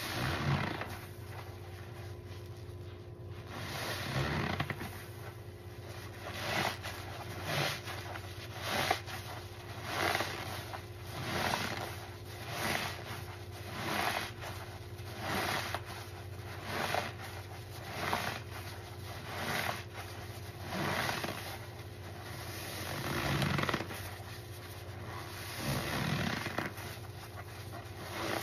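Soap-soaked foam sponges squeezed again and again in thick suds, a wet squelch with each squeeze, about one every second and a half.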